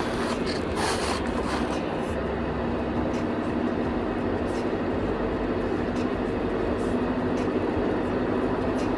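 Steady rumble and drone of a moving vehicle, with a few light clicks and knocks in the first couple of seconds.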